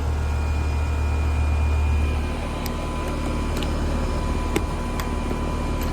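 Outdoor air-conditioning condensing unit running with its compressor and condenser fan, a steady low hum with a thin steady whine over it, easing slightly about two seconds in. It is running again on a newly fitted capacitor, the failed capacitor having been the fault. A few light clicks sound over it.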